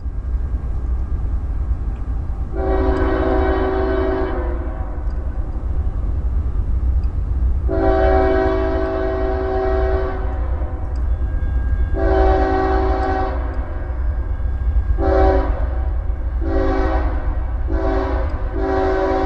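Multi-chime air horn of a CSX freight locomotive sounding with echo: two long blasts, a shorter one, then a quick string of short blasts near the end. A steady low rumble of the train runs underneath.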